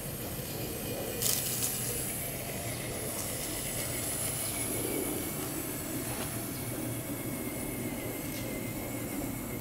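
Traxxas TRX-4 Sport 1/10-scale rock crawler driving over dirt and grass: a steady rushing noise with a faint thin whine from its electric motor and gears. A brief scuff comes about a second in.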